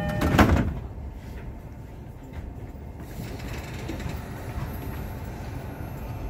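Sliding doors of a JR East Utsunomiya Line commuter train closing with a sharp thud about half a second in, followed by the low steady rumble of the car.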